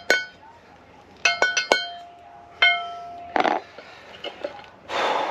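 Hammer blows on a steel drift driving a wheel bearing race into a caravan's brake drum hub: one blow, then a quick run of about five, then one more, each with a metallic ring. The race is being tapped in without a proper bearing press tool and is not going in square. A short scuff follows about three and a half seconds in.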